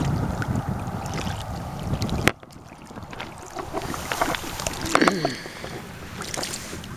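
Wind rumbling on the microphone, then after a sudden cut a quieter stretch of scattered small splashes and clicks as a hooked channel catfish is drawn through shallow water over rocks.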